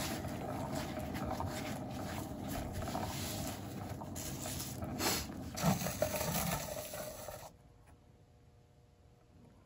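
Spinning turntable carrying a painted board runs with a steady rumbling whir and a few knocks near the middle. It cuts off about seven and a half seconds in as the spin stops.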